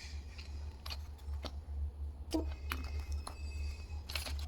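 Scattered light clicks and taps of plastic toy pieces being handled, a few irregular ones about a second apart, over a steady low hum.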